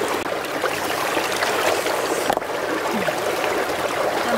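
Shallow stream flowing over rocks: a steady rush of running water.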